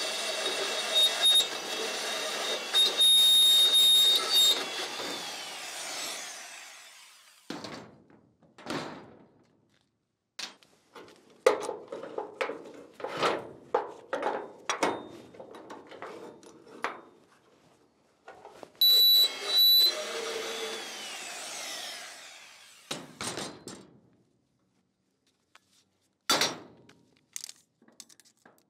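Portable band saw cutting through steel tube, then running down and fading out about six seconds in. Irregular clanks and knocks follow as the steel is handled and clamped. The saw runs again briefly about two-thirds of the way through and winds down.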